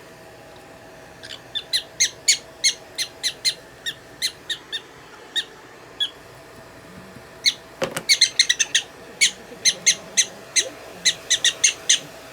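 Prairie dog giving a run of short, high chirps at about two to three a second, pausing midway, then chirping again faster, with a sharp click just before the second run.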